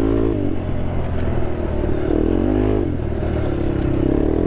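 Honda TRX sport quad's engine being ridden, the revs rising and falling with the throttle: it eases off near the start, climbs and drops again about two seconds in, and picks up again near the end.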